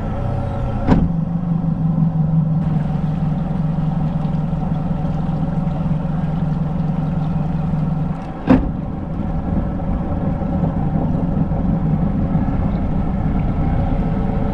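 Boat engine running steadily at idle with an even low hum, just after starting. Two sharp knocks cut through it, about a second in and again about eight and a half seconds in.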